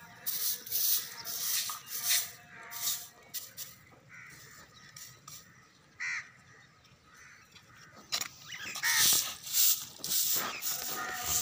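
Straw hand broom sweeping dust and dry leaves across a concrete roof in a run of short swishing strokes, then again more loudly near the end. A crow caws once in the middle.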